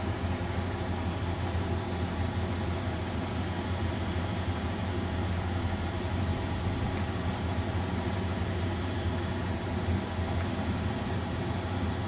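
Steady low drone of a running vehicle, engine and road noise, holding even with no clicks or changes.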